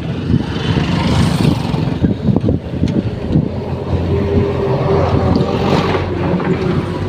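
A road vehicle travelling, with its engine rumble and wind buffeting the microphone.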